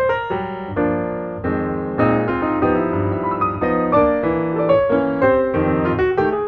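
Background piano music: a steady flow of notes and chords.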